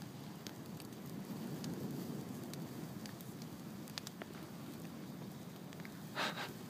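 Log bonfire burning: a steady low rush with scattered small crackles and pops, and one louder short burst near the end.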